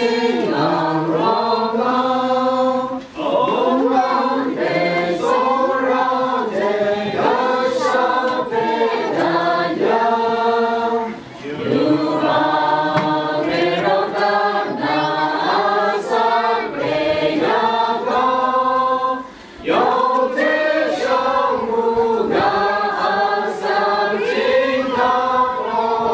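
A crowd singing a hymn together from songbooks, with no instrument heard. Its lines run several seconds each, with short breaks for breath about every eight seconds.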